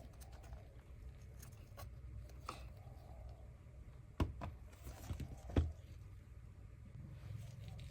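Handling noise during repair work: a few sharp clicks and knocks, the loudest about four seconds in and another about a second and a half later, over a low steady hum.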